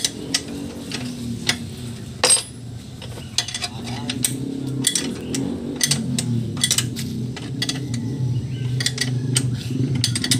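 Irregular light metallic clinks and taps of tools and metal parts being handled at the base of a small boat engine during its alignment, over a low background hum.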